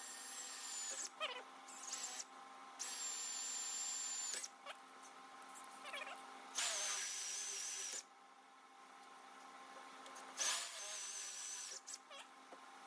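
Electric hand drill boring holes through a steel caster mounting plate held in a vise, its bit lubricated with cutting oil. The drill runs in four short spells of one to two seconds each, with a high whine, separated by pauses.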